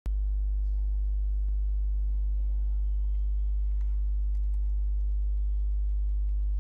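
Steady low electrical hum with a stack of evenly spaced overtones, running under the recording. It cuts out for an instant at the very start.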